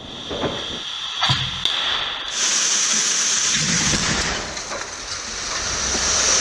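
Car crash test: a loud hissing rush with a cluster of sharp cracks about a second in, then a steadier, brighter hiss.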